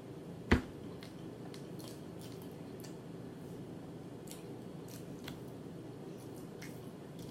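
Close-up eating sounds: faint wet smacking clicks from chewing, scattered through, with one sharper knock about half a second in, over a low steady hum.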